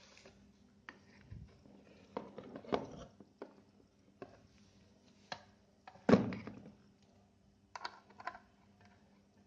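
Computer parts being handled during a PC build: a run of irregular clicks and knocks, the loudest about six seconds in, over a faint steady hum.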